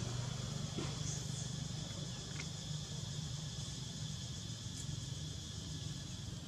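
Outdoor ambience: a steady high insect drone over a constant low hum, with a few faint short chirps.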